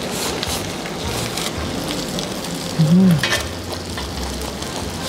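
Marinated duck sizzling steadily on a tabletop grill pan, with a few light clicks of cutlery. About three seconds in, a short hummed 'mm' rises and falls over it.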